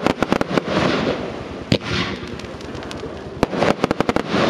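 Evolution Fireworks Mega Willows compound fireworks cake firing: clusters of sharp shot pops, one at the start, another near the middle and a quick run of several near the end, with swells of hissing from the bursting stars in between.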